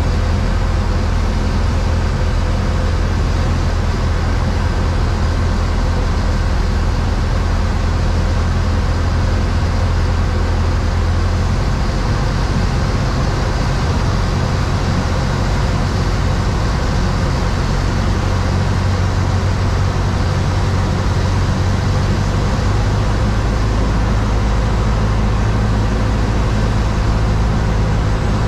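Cessna 172's piston engine and propeller droning steadily, heard from inside the cabin. The engine note shifts twice, about a third of the way in and again about four-fifths through.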